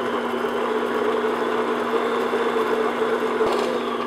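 Electric stand mixer running at medium-high speed, its paddle beating butter and sugar to a creamy, fluffy mix: a steady motor whine that starts to wind down near the end.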